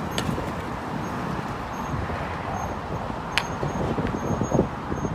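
Sandstorm wind rushing over and buffeting the phone's microphone, a low gusty noise that swells and dips, with road traffic running underneath.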